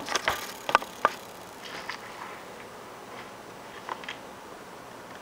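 Handling noise: a few sharp clicks and knocks in the first second or so, then a handful of faint ticks over a low steady background as the small brushless motor and its wires are held and moved. The motor is not running.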